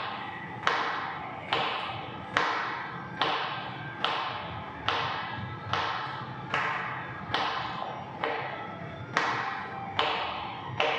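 A wooden stick knocked down again and again in a wrist-strengthening drill: about thirteen sharp, evenly spaced knocks just under a second apart, each dying away in the room's echo.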